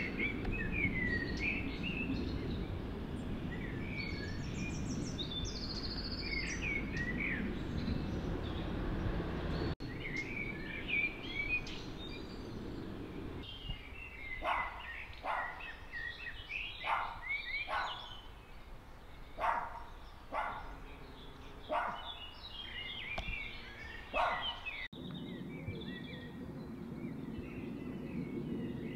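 Small birds singing and chirping over a low steady rumble. Through the middle stretch a series of about ten short, sharp calls repeats roughly once a second, and the rumble drops away there.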